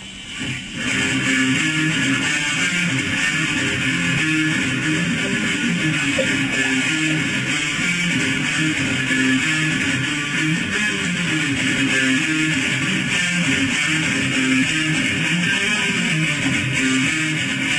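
Electric guitar being played, riffing on quickly changing low notes, starting about a second in and going on without a break.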